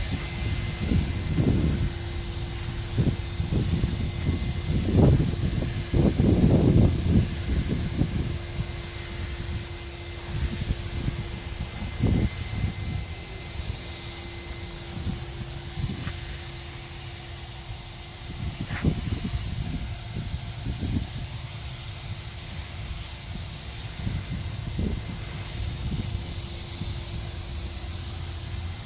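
Paint spray gun hissing steadily as clear coat is sprayed onto a plastic car bumper, over a steady low hum. Loud low thumps come in a cluster in the first several seconds and once or twice more later.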